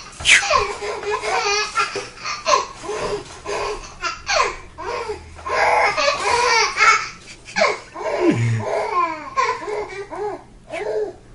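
A baby laughing in a long run of short, repeated bursts.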